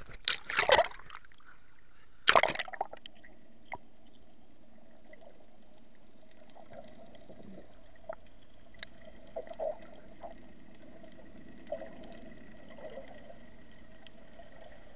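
Sea water splashing twice against the camera as it goes under, about half a second and two seconds in, then the muffled hush of being underwater with a few faint bubbling blips and clicks.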